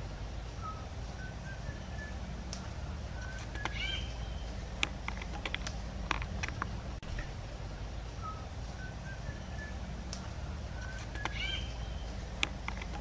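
Wild birds chirping in short whistled phrases every few seconds, over a steady low rumble, with scattered sharp clicks.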